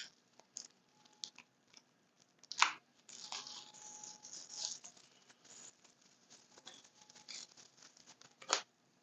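Small handling noises from a lot of watches being sorted through by hand: light rustling and scattered clicks, with a sharper knock about two and a half seconds in and another near the end.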